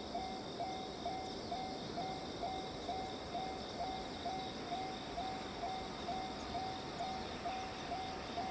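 Japanese railway level-crossing warning bell ringing steadily at about two strokes a second, warning of an approaching train. Insects chirr steadily underneath.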